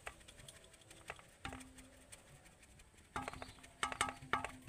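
Plastic sieve being shaken and tapped against a steel plate while gram flour is sifted through it: soft scattered taps, then a quick run of taps near the end.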